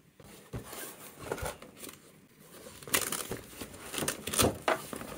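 Fabric tool rolls rustling as they are handled and unfolded in a toolbox drawer, with a few louder, sharper rustles in the last couple of seconds.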